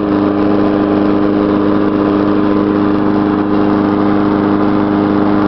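Small petrol lawn mower engine running at a steady speed, burning up the last of its old gas.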